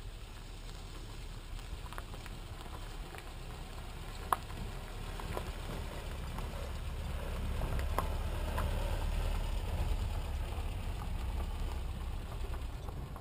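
Low rumble of a vehicle driving slowly over a rough dirt road, with scattered knocks and rattles; it grows louder toward the middle.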